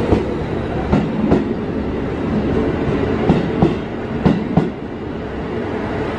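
Electric local train rolling past the platform, its wheels clacking over rail joints in close pairs over a steady running rumble.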